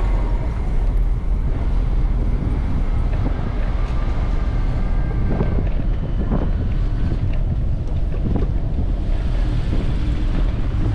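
Wind buffeting the microphone of a camera riding on a moving bicycle, a steady low rumble mixed with city traffic noise. Faint high squeals come and go midway.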